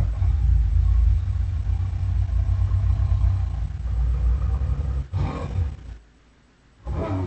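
A deep, heavy rumble from a sound-effects recording, lasting about six seconds with a short surge near its end. It breaks off, and after a brief pause a new roar starts near the end.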